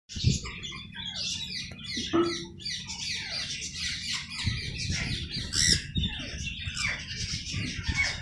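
A flock of small birds chirping and chattering, many short falling calls overlapping without a break. A low rumble runs underneath and grows stronger about halfway through.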